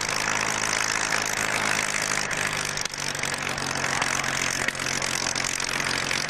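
Piston aero engine of a single-engine propeller fighter running at low power while the aircraft taxis: a steady, even engine note.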